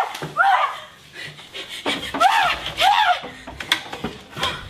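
A young man screaming without words in short, high cries, each rising and then falling in pitch, with a few sharp knocks between the cries.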